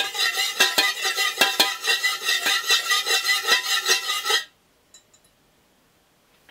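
Metal stirrer clinking and scraping rapidly against the inside of a metal wax pouring pitcher as melted candle wax with fragrance oil is stirred, about four to five ringing clinks a second. It stops suddenly about four and a half seconds in.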